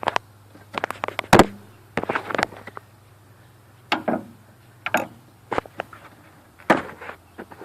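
Irregular sharp clicks and knocks of a flathead screwdriver working against the old hood latch and its rubber cable grommet as the grommet is pried out, the loudest knock about a second and a half in, over a faint steady low hum.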